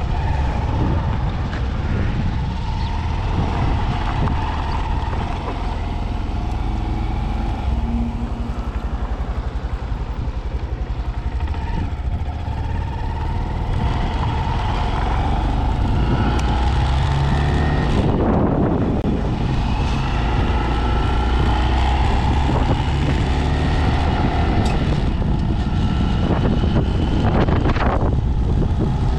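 Honda Z125 Monkey's single-cylinder engine running while being ridden, its pitch rising several times in the second half as it accelerates. Wind buffets the microphone throughout.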